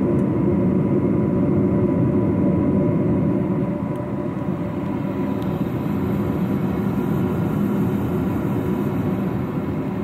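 Gibson gas furnace running just after its burners have lit: a steady rush of the gas burner flames together with the draft inducer motor, with a faint steady whine over it.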